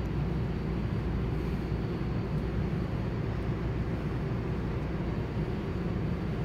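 Steady low mechanical rumble with no distinct events, the kind of constant background noise that a large fan or an ice arena's air handling gives.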